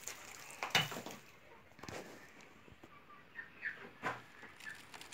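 Old clay-and-straw wall being picked apart by a gloved hand and a crowbar: a few dull knocks and crumbling of dry clay, with a few faint high chirps in between.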